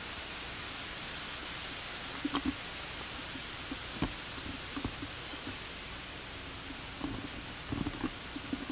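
Steady hiss of old camcorder tape noise, with a few scattered soft thumps and knocks.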